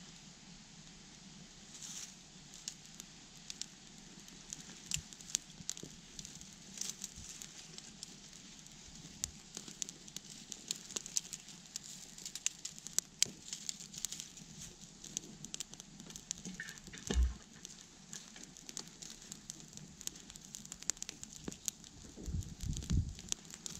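Small twig kindling fire crackling as it catches, with sharp pops and snaps throughout. A dull thump about two-thirds of the way through, and a few louder knocks near the end.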